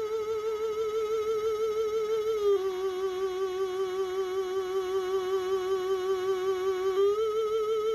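Background music: a single held synth lead note with a wide, even vibrato. It drops a step about two and a half seconds in and rises back near the end.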